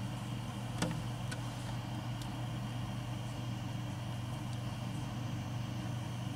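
A steady low hum, with a sharp click about a second in and a fainter one just after.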